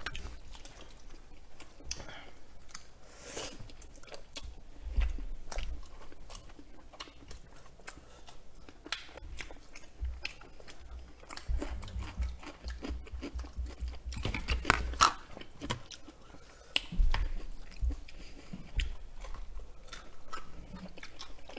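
Close-miked chewing and biting of braised chicken and noodles in truffle cream sauce, with a few crunchy bites among the soft mouth sounds.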